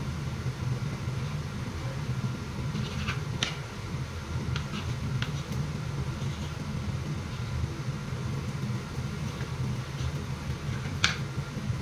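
Kitchen knife cutting on a cutting board: a few sharp taps of the blade against the board, a cluster about three to five seconds in and a louder one near the end, over a steady low hum.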